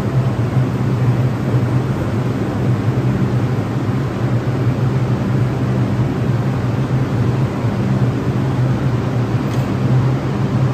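R142 subway train standing at a station platform, its onboard equipment giving a loud, steady low hum over a constant hiss.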